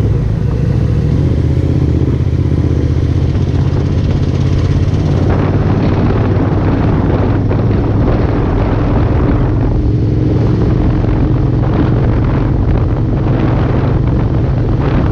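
Motorcycle engine running at a steady cruising speed, with wind and road rush over it.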